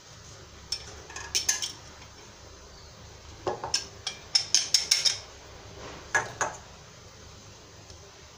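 A wire whisk and a small glass dish clinking against a metal mixing bowl as starch is tipped in and whisked. A few separate taps come first, then a quick run of sharp clinks about four to five seconds in, and two more near the end.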